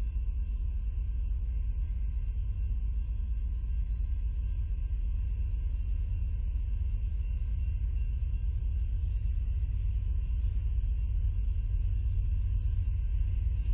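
Steady low rumble with faint steady hum tones, slowly growing louder toward the end: the distant sound of an approaching diesel-hauled freight train.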